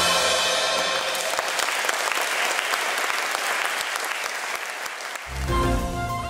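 Concert audience applauding as the last notes of a song fade out in the first second. Recorded music with a strong bass line comes in about five seconds in.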